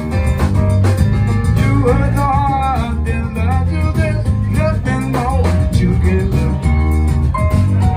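Live funk band playing: Nord Electro 2 keyboard, drum kit, electric bass and saxophone, with a melodic line that slides up and down in pitch through the middle.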